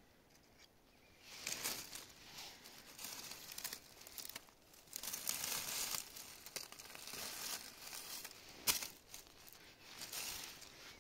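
Dry leaves and grass rustling and crackling in irregular bursts as a shed deer antler is moved through the leaf litter, starting about a second in. There is one sharper crackle about three-quarters of the way through.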